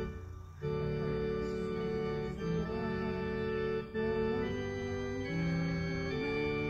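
Organ playing a hymn in sustained chords that change every second or two, with a short break about half a second in and another near four seconds in.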